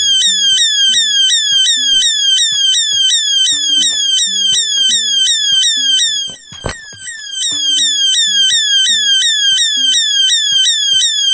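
Electronic siren from a 555-timer circuit's speaker, sounding a fast warbling tone that sweeps in pitch about three times a second. It drops out briefly with a click around the middle, then resumes. Faint background music plays underneath.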